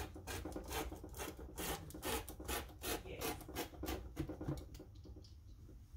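Rotary cutter rolling along a metal ruler and slicing through copy paper laid on a T-shirt: a quick series of scratchy cutting strokes, several a second, that fade out about five seconds in.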